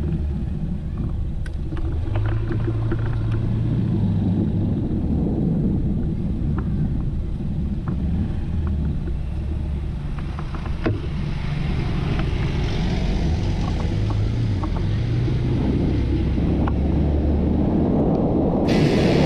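Honda ADV 150 scooter's single-cylinder engine running on the move, its note shifting up and down with speed, under wind rumble on the microphone.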